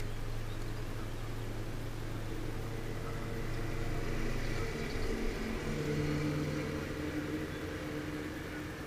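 Bass boat's electric trolling motor humming steadily, its pitch stepping up to a higher hum about halfway through.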